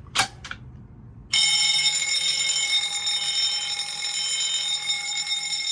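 A click, then about a second and a half in a fire alarm system goes into alarm all at once: electric fire alarm bells ring continuously while a higher alarm tone pulses on and off about once a second.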